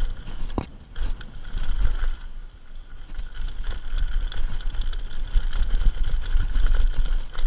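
Mountain bike riding fast down a dirt trail: wind rumbling on the camera microphone, tyres rolling over dirt and sand, and the bike rattling and knocking over bumps.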